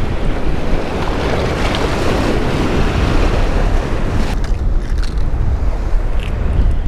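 Wind buffeting the microphone of a body-worn action camera over surf washing against sea rocks: a steady rushing noise with a heavy low rumble.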